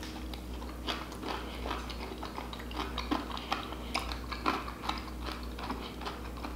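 A person chewing a mouthful of chicken wing close to the microphone: irregular soft clicks and smacks of the mouth, a few a second.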